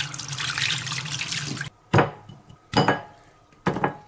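Water running from a kitchen tap, cut off abruptly about a second and a half in. Three sharp knocks follow, about a second apart.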